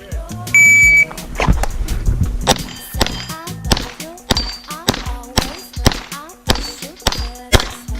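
Shot timer beep about half a second in, then a string of pistol shots from a 1911 roughly every half second, with steel targets ringing, over background music.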